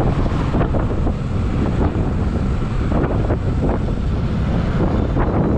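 Wind rushing and buffeting over the microphone of a Bajaj Pulsar NS200 motorcycle riding at road speed, with the bike's engine and road noise as a low rumble underneath.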